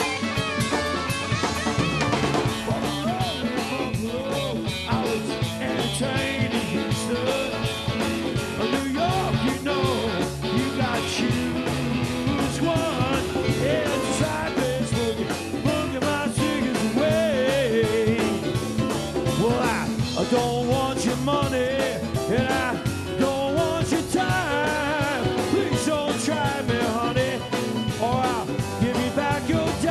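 Live rock band playing a boogie-rock instrumental passage: electric guitars, bass, keyboards and drums with a steady beat, the guitar lines bending in pitch.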